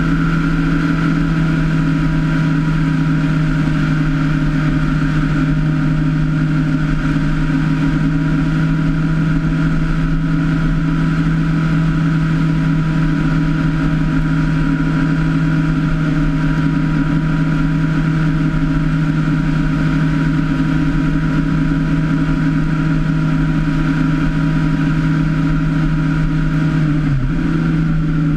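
Motorcycle engine running at a steady cruise, a constant drone mixed with wind and tyre noise. The engine note dips briefly about a second before the end.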